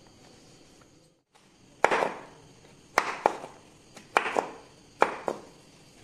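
Knife chopping raw green mango on a cutting board: a series of sharp strikes from about two seconds in, several coming in quick pairs.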